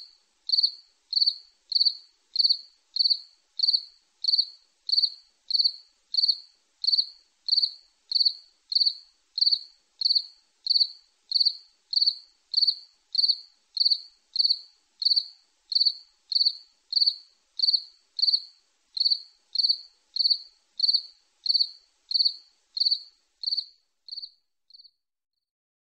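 Insect chirping: a single high chirp repeated evenly, about one and a half times a second, fading out and stopping near the end.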